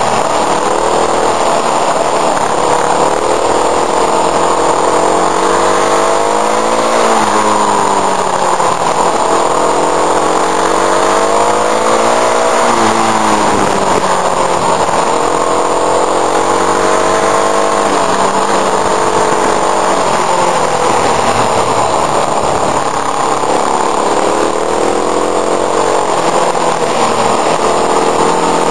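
Motorcycle engine heard onboard while riding, its revs rising and falling again and again as it accelerates out of bends and eases off into them, over a steady rush of wind.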